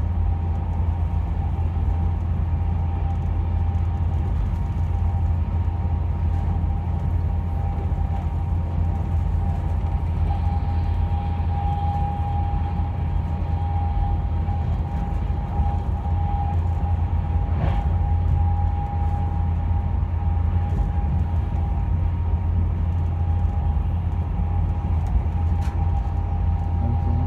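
A passenger train running at speed, heard from inside the carriage: a steady low rumble with a constant high whine over it. One short click about eighteen seconds in.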